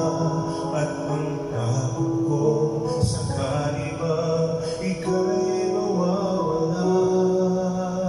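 A man singing into a handheld microphone over backing music, with long held notes.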